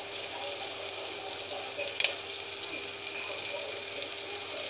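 Whole raw shrimp sizzling in melted butter and garlic in a non-stick wok as more shrimp are laid in, with a short click about two seconds in.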